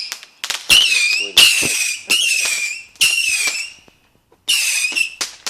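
Whistling fireworks going off in quick succession: a string of shrill whistles, each about half a second long, that dip slightly in pitch and then hold, with sharp pops and crackles between them. There is a brief break about four seconds in.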